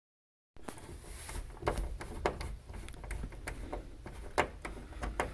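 Small metal clicks and taps of a combination wrench turning an 8 mm nut down onto a bolt, with a few sharper knocks among them. The sound cuts in suddenly about half a second in, after dead silence.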